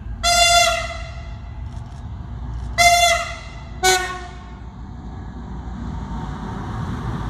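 Vossloh G2000 diesel-hydraulic locomotive sounding its horn three times: a long blast, a shorter one, then a brief two-tone blast. The rumble of its engine and wheels then swells as it passes close by.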